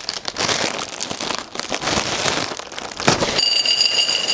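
Plastic cereal-bag liner crinkling and crackling as it is pulled open. About three seconds in, cereal pours into a glass bowl, with a high steady ringing tone.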